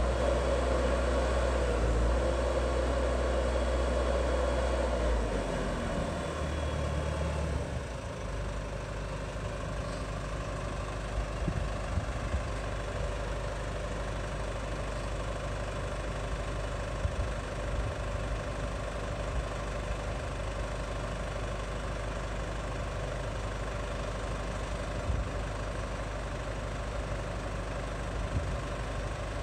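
Mobile boat hoist's engine running fast, its pitch falling about five seconds in as it winds down, then settling to a steady idle with a few light knocks.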